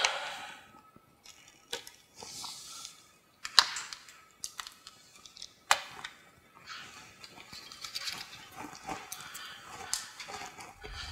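Sharp plastic clicks and snaps, a few seconds apart, from clip tabs being cut and worked on a plastic car bumper cover, between stretches of scraping and handling rustle.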